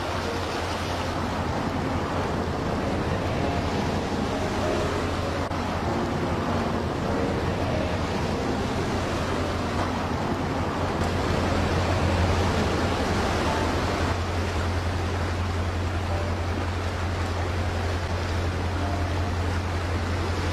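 A fast-flowing river rushing steadily, with a constant low rumble underneath that swells a little about twelve seconds in.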